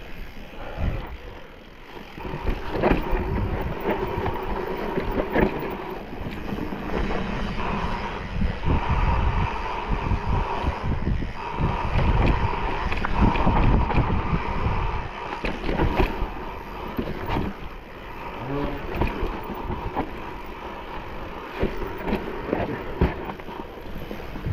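Mountain bike ridden over a rough trail: wind rushing across the camera microphone, with frequent knocks and rattles from the bike jolting over the ground.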